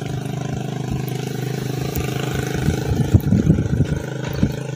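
A motor vehicle engine running steadily at idle, a low even hum.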